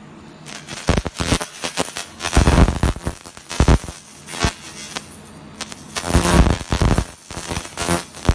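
Handheld laser cleaning head ablating a dark coating off aluminum plates: irregular crackling that starts about half a second in and comes in dense clusters, with short lulls near the middle and again near the end.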